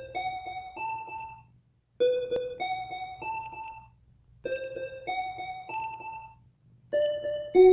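Background music: a keyboard plays a slow melody in short phrases of three or four held notes, with a brief pause after each phrase.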